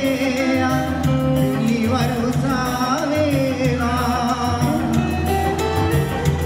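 Background song: a singer's wavering, ornamented melody over steady bass notes and a regular beat.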